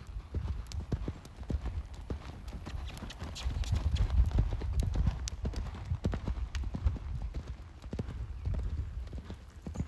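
Hoofbeats of a horse cantering on loose sand and dirt, a run of soft, quick thuds over a low rumble. They get louder for a while in the middle.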